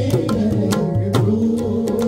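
Qawwali music: tabla strokes over sustained melodic notes.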